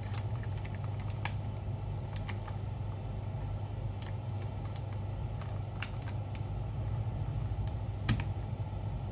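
Keys of a mechanical keyboard with clicky switches being pressed, sharp clicks at an uneven pace, a few a second, over a steady low hum.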